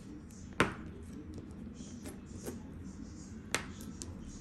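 Hands making sharp cracks and taps against a table: two loud ones about three seconds apart, with a few fainter taps between.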